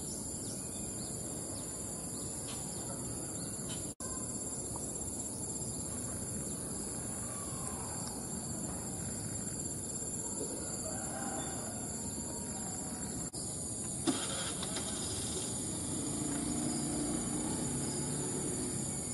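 A steady, high-pitched chorus of insects over a low, even background rumble, with a few faint bird chirps about halfway through.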